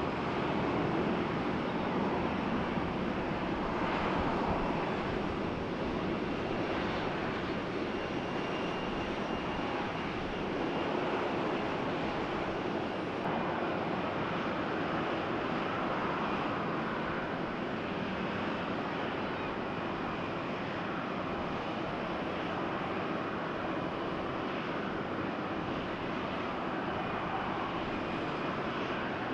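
Airbus A330-200 freighter's Rolls-Royce Trent 700 jet engines running, a steady, even jet noise that eases slightly in level.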